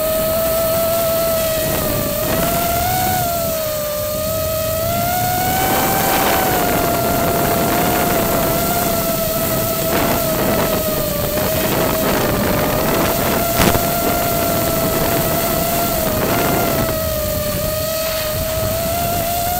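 FPV quadcopter's brushless motors whining in flight: one steady high hum that wavers slightly in pitch with the throttle, over a constant noisy hiss.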